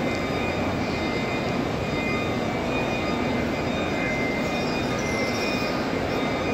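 Steady murmur of a vast crowd of pilgrims circling the Kaaba, countless voices blending into one continuous noise with no single voice standing out.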